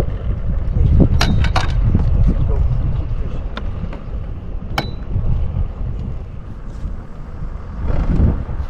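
Wind buffeting the microphone, a heavy low rumble rising and falling, with a few sharp clicks about a second in and another near the middle.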